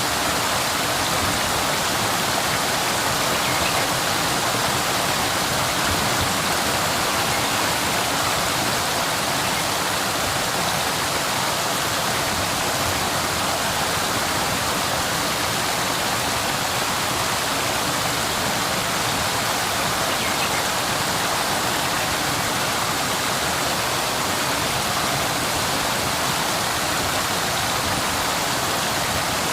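Waterfall: a steady, unbroken rush of falling water, mostly in the mid and high range, with little low rumble.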